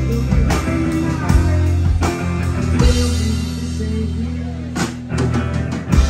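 Live rock band playing: guitar, bass and drum kit, with a quick run of drum hits near the end.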